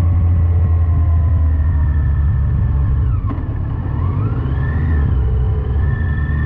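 Yamaha FJR1300AE's inline-four engine running on the move. About three seconds in there is a brief click and the engine note dips, then its pitch climbs again as the bike accelerates.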